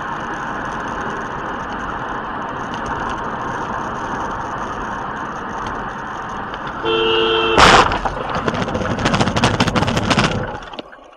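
Steady road and engine noise heard from inside a moving car, then a two-tone car horn honks for under a second, followed at once by a loud crash and about three seconds of rapid clattering and knocking before it cuts off.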